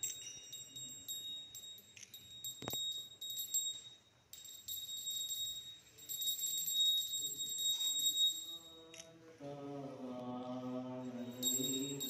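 Temple aarti bells ringing rapidly and steadily, with a short break about four seconds in. In the second half the ringing drops away under a long held note, then starts again near the end.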